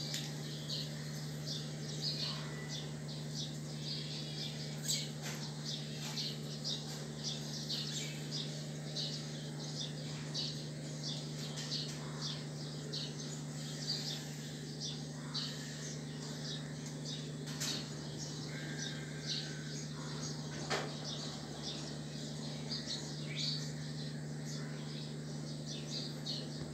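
Birds chirping: short high calls coming several times a second throughout, over a steady low hum.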